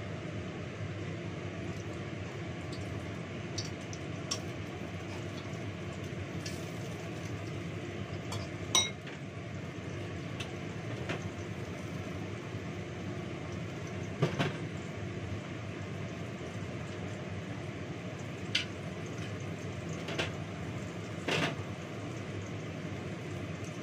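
Several sharp clinks of pans, plates and utensils being handled on a kitchen counter, over the steady whoosh of a kitchen range hood fan.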